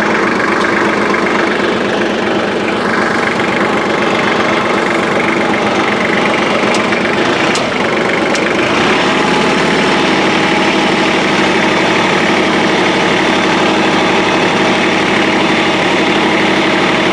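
Kubota compact tractor's diesel engine running steadily at idle.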